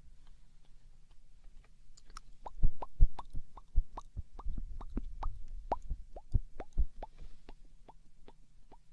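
Close-miked wet mouth sounds: a run of separate tongue clicks and lip pops, about two or three a second, faint at first, louder through the middle and softer again near the end.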